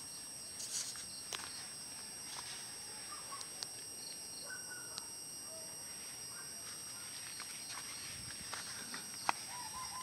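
Garden ambience: a steady high-pitched insect drone with a few short bird chirps, and light scattered clicks and steps from someone walking.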